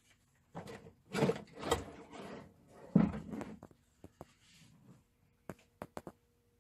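Plastic toilet cassette being pulled out of its compartment: scraping and sliding against the housing, with a knock about three seconds in, then a few light clicks near the end.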